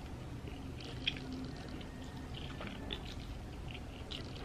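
Wet mouth sounds of a person eating noodles: chewing and slurping strands in, with small sticky clicks and smacks, one sharper about a second in.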